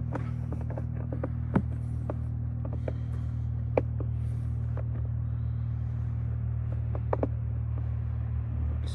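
Light clicks and taps of hands handling the door panel's plastic trim and wiring connectors, a few separate knocks over a steady low hum.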